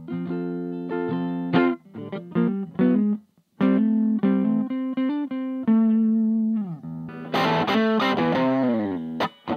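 Electric guitar played through a 2-watt Little Rebel kit amp into a Jensen CR8 speaker, with the amp's clipping LEDs removed: ringing chords and single notes with a short break, then a pitch bending down about seven seconds in. A denser, more overdriven passage follows near the end.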